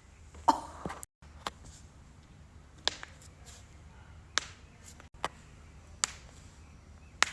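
Joints cracking: a run of sharp, short pops, about eight of them spaced irregularly roughly a second apart, the loudest about half a second in.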